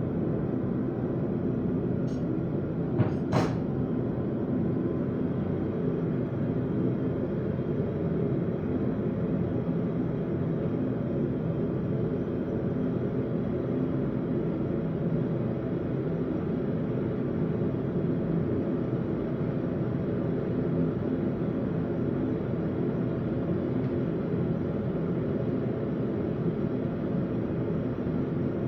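A forge running with a steady, even rushing noise, with a few sharp metallic clicks about two to three and a half seconds in.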